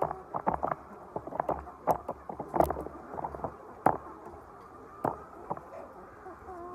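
Laying hens in a poultry house: a dense, irregular run of sharp taps and clicks, with a few short clucking calls near the start and near the end.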